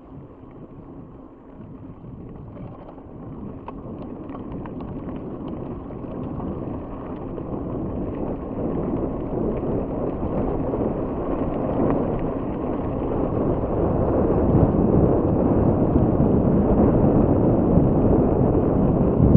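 Mountain bike rolling fast on a gravel track: tyre noise and wind on the handlebar-mounted microphone, a steady rush that grows louder as the bike gathers speed, with a few small clicks from the gravel.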